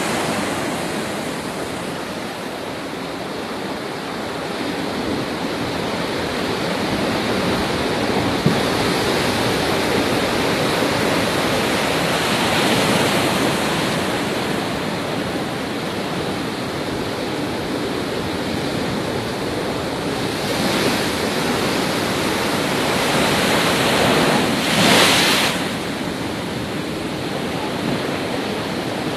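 Cyclone wind and rain: a steady rushing noise that swells in a gust about 12 seconds in and surges briefly near 25 seconds.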